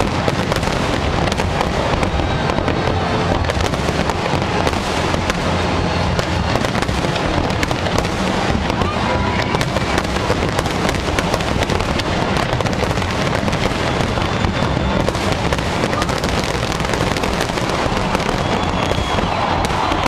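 A large fireworks display going off continuously: a dense, unbroken barrage of bangs and crackling shells with no pause.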